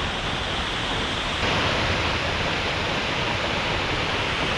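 Waterfall rushing: a steady, even wash of falling water that grows a little louder about a second and a half in.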